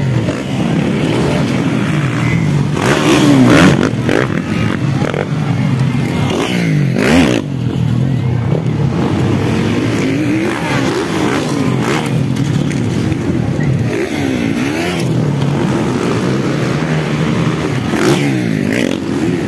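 Several motocross bikes racing, their engines revving up and falling away again every few seconds as they accelerate and ease off around the track.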